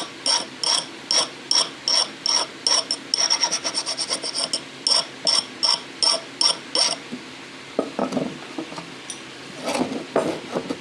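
Hand file or rasp worked in quick, regular strokes, about two to three a second, that stop about seven seconds in. A few duller scrapes and knocks follow near the end.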